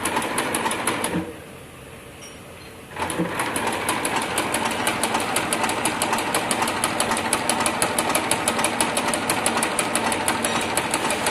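Automatic pattern sewing machine stitching a jute shoe sole: a quick, even run of stitches that stops about a second in, then starts again after a short pause and runs steadily.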